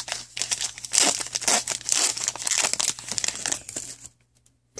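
Foil wrapper of a 2015 Upper Deck CFL football card pack crinkling and tearing as the pack is opened by hand. The rustling comes in dense bursts and stops about four seconds in.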